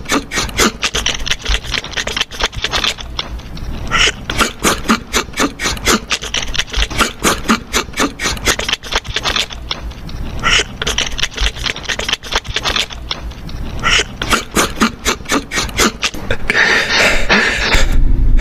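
A hamster crunching dry food pellets, heard close up as rapid, crisp crunches several times a second, with spells of faster chewing.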